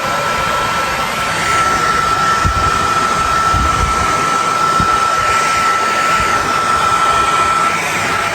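Hair dryer blowing steadily: an even rush of air with a constant high whine.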